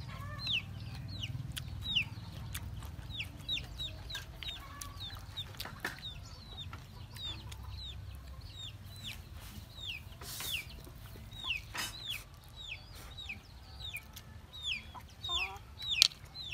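Chickens calling: a steady run of short, high chirps that fall in pitch, about two a second.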